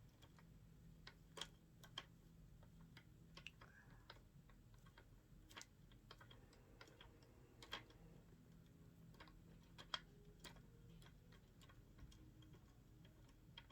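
Near silence broken by faint, irregular clicks and taps, from chair parts and hardware being handled during assembly.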